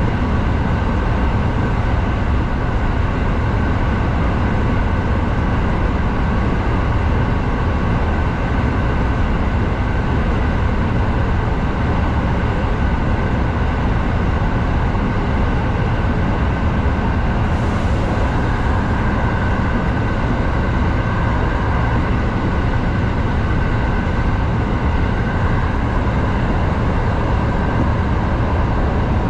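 Kintetsu 7000 series electric train running steadily through a tunnel, heard from inside at the front: continuous wheel-on-rail rumble with a faint steady whine over it.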